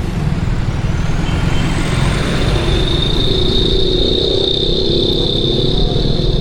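Traffic and motorcycle riding noise, with wind rumbling on the microphone throughout. A steady high-pitched whine comes in about two and a half seconds in and holds.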